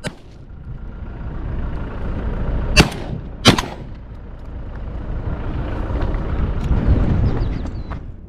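Two sharp gunshots from a hunting shotgun, about three-quarters of a second apart, a few seconds in, over a rumbling noise that swells and then fades.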